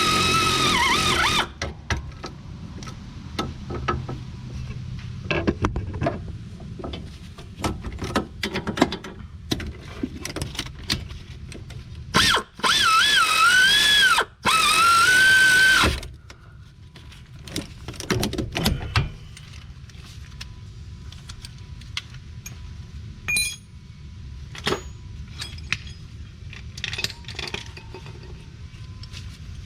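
Cordless power tool whining in bursts under load as it runs in the front hub assembly bolts, its pitch wavering: a short run at the start and a longer one from about 12 to 16 seconds in. In between come scattered clicks and clanks of tools on metal.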